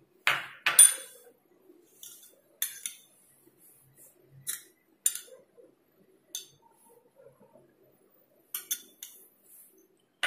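Metal spoons clinking against stainless steel and glass bowls as chutney is spooned onto chopped vegetables and chickpeas in a steel kadai. There are scattered single clinks, with the loudest pair about half a second in and a few in quick succession near the end.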